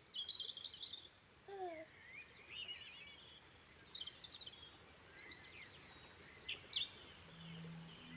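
Birdsong: several birds chirping and twittering in short quick phrases, busiest about six seconds in, with one lower falling call about a second and a half in.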